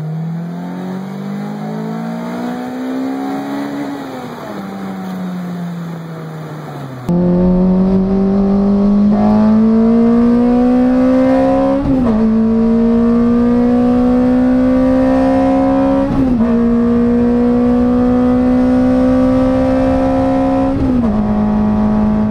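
Toyota 2ZZ-GE four-cylinder engine in a Lotus revving hard, its pitch climbing steeply and then falling back. Then, heard louder inside the cabin, it pulls at high revs at speed on track, its note climbing slowly and dipping briefly three times as it changes gear.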